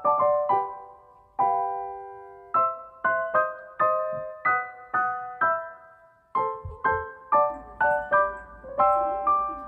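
Background piano music: a gentle run of struck chords that ring and die away, pausing briefly twice.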